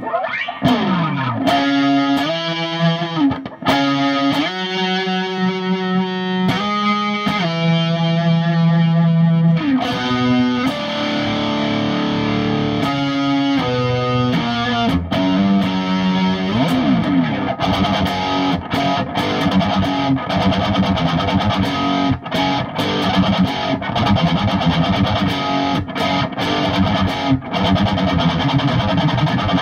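Grover Jackson Dinky electric guitar played through an amp with a distorted tone: held notes and chords with pitch slides, starting with a slide down, then from a bit past halfway a fast, choppy riff with abrupt stops.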